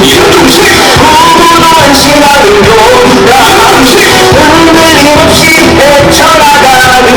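Loud election campaign song: a singer's voice carrying a melody over a steady beat.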